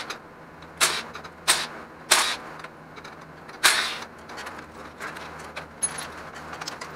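Cordless impact wrench fired in four short bursts in the first four seconds, loosening bolts on a GM Gen IV 5.3 LS V8 during its teardown, with faint metal clicks afterwards.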